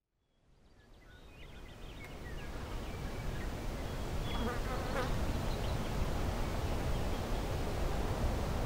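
Outdoor nature ambience sound effect fading in from silence over about four seconds: a steady wash of low rumble and hiss with a few short, faint chirps, and one short sharp sound about five seconds in.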